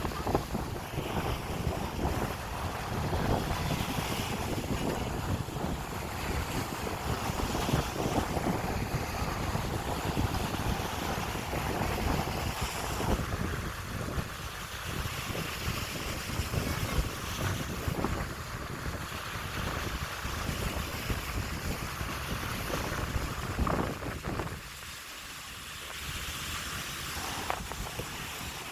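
Strong wind buffeting the microphone, with sea waves washing onto the beach underneath. The wind eases briefly near the end.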